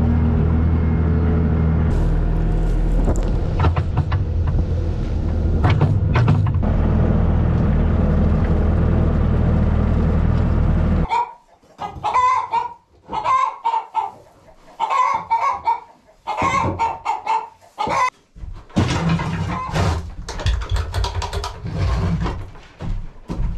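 A tractor engine running at a steady low hum that cuts off abruptly about eleven seconds in. Then hens cluck in short bursts, with a shovel scraping the coop floor near the end.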